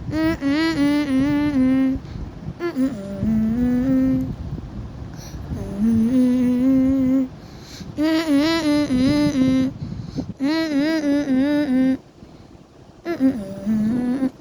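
A voice humming a gentle tune in short phrases of about two seconds each, with brief pauses between them.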